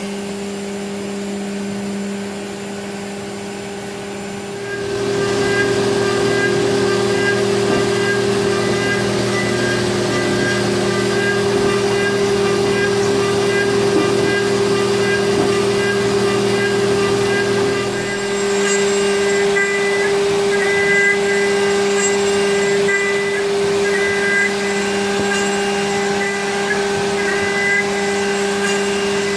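Haas CNC vertical mill's spindle running with a steady whine while a 3/8-inch ball end mill makes finishing passes over an aluminium paintball marker body, with coolant spraying. It grows louder about five seconds in.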